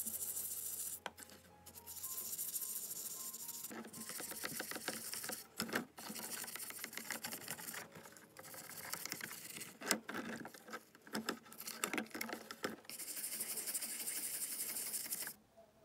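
Work noise on a scale model car: several stretches of rough, even hissing, each a second or two long, with scattered sharp clicks. Faint background music plays with held notes. The hissing stops abruptly about a second before the end.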